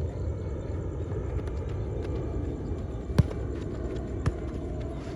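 Steady low wind rumble on the microphone over an outdoor football pitch, with two sharp thuds of a football being kicked about a second apart, a little past halfway.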